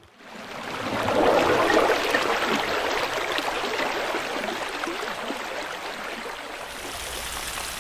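Running water, swelling up over the first second and then slowly fading.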